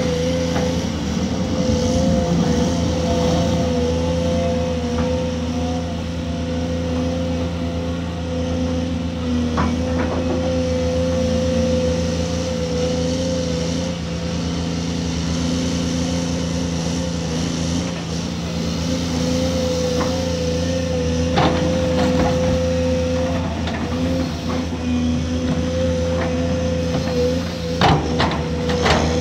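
Heavy diesel mining machinery running steadily, a deep engine drone with a wavering whine over it, and a few short knocks and clacks, most of them near the end.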